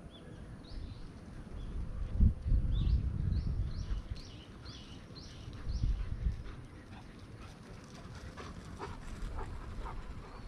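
A bird calling in a run of short, high chirps, about two a second, that stop about halfway through, over a low rumbling noise.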